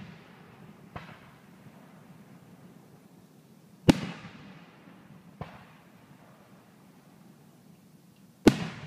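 Aerial firework shells bursting: a loud bang about four seconds in and another near the end, each trailing off slowly. A fainter report comes about a second and a half after each loud bang, one of them about a second in.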